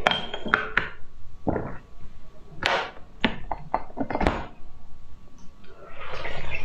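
Test tubes clinking and knocking against each other and the plastic rack as they are set down and picked up, several separate sharp clinks. About six seconds in, a longer slurping hiss as the contents are sucked from a tube.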